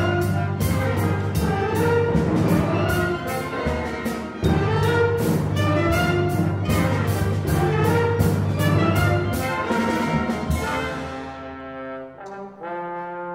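Full orchestra playing a brass-led passage over a steady, regular drum beat, then thinning out about two seconds before the end into quieter held chords.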